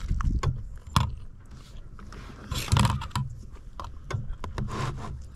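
Eating at a table: spoon and fork clicking and scraping against a plate and plastic containers, a few sharp clicks over a steady low rumble.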